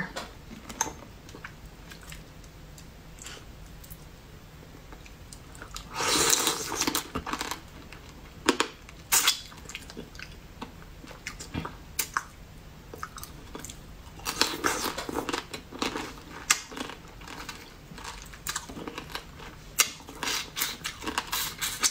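Close-miked eating of spicy crab chunks by hand: chewing and biting with small crunching clicks, coming in bursts with pauses between, loudest about six seconds in and again from about fourteen to seventeen seconds.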